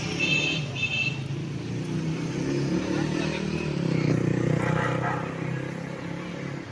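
Road traffic: a motor vehicle engine running as it passes along the street. Two short high-pitched beeps come about half a second apart in the first second.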